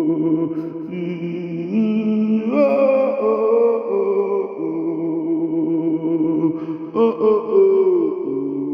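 Slow, chant-like music of long held notes over a low sustained note, sliding to new pitches every few seconds.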